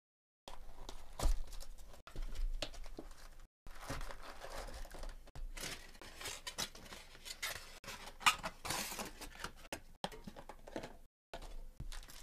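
A 2021 Topps Chrome trading-card box being torn open by hand and its foil packs pulled out and handled: irregular tearing, crinkling and rustling of cardboard and foil wrappers, with a few light knocks.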